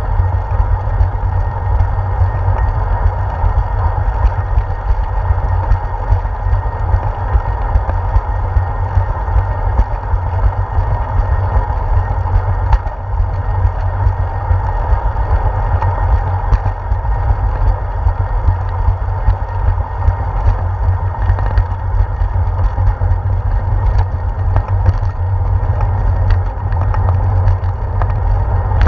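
Riding noise picked up by a handlebar-mounted GoPro Hero 4 on a moving bicycle: a steady low rumble of wind and vibration on the camera, with frequent small clicks and knocks as the mount shakes over the concrete path's joints and bumps.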